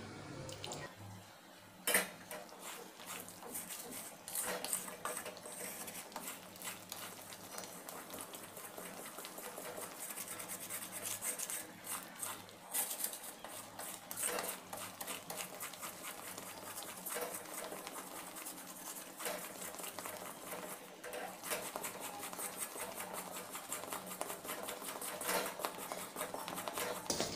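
Flat wooden spatula stirring and scraping thick Mysore pak batter of gram flour, sugar syrup and ghee around a steel pan, a quick, steady run of faint scrapes and clicks. A sharper knock sounds about two seconds in.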